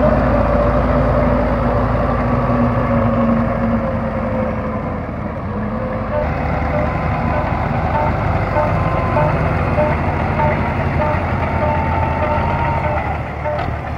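Belarus MTZ 510 tractor's diesel engine running steadily under load as it churns and pushes mud with its front and rear blades. From about six seconds in, a repeating beep, about two a second, sounds over the engine.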